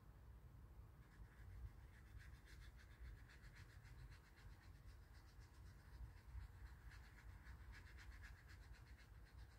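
Faint, quick repeated strokes of a paintbrush scrubbing on watercolour paper as paint is mixed and spread, starting about a second and a half in.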